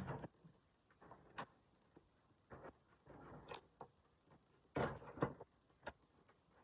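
Faint handling noise of a toy's box and packaging being worked open by hand: scattered small clicks and short rustles, with a louder double knock about five seconds in.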